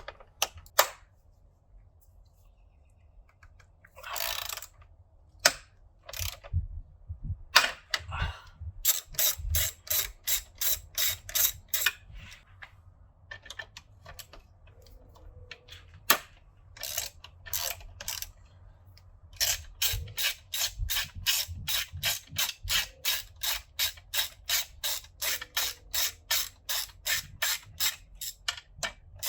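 Socket ratchet clicking as the 12mm intercooler hold-down bolts are backed out, in runs of about three clicks a second with pauses between, and a brief rasp early on.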